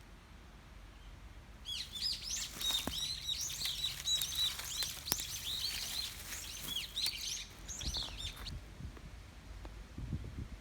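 Small birds chirping in a rapid string of short, high, up-and-down notes, starting about two seconds in and stopping near the end, followed by a few low knocks.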